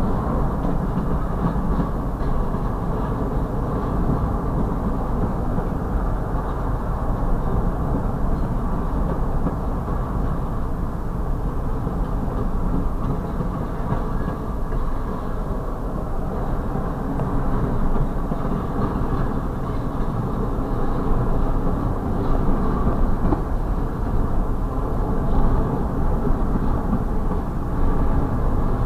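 Double-stack intermodal freight train's well cars rolling past: a steady rumble of steel wheels on rail.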